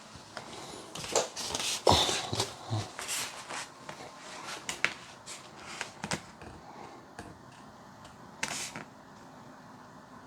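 Handling noises from a foam RC model airplane being picked up and turned over: scattered light clicks, taps and brief rustles, busiest in the first few seconds, with another short rustle near the end.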